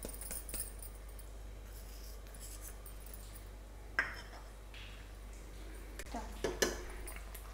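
Faint clinks and scrapes of a metal spatula against a metal kadhai: one sharp clink about four seconds in and a few more short ones near the end, over a low steady hum.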